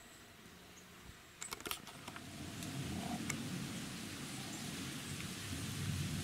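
A few sharp clicks about a second and a half in, then a low rumbling noise on the microphone that builds up and holds to the end.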